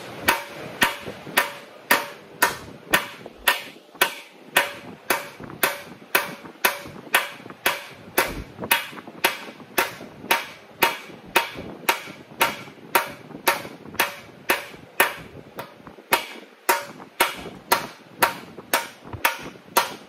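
Steady hammer blows, nearly two a second, each with a short metallic ring: a small blocking hammer working a welded sheet-steel repair panel. It is stretching the weld seam to take out the shrink of the weld.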